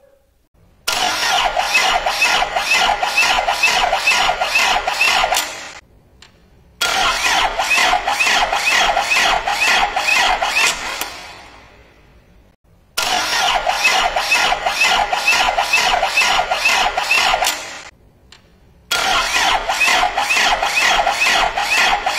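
Starter motor cranking an engine four times, about five seconds each, its pinion driving the flywheel ring gear with an even, rhythmic pulsing whir that trails off each time it is released. The cranking is slow, the sign of a weak or discharged battery.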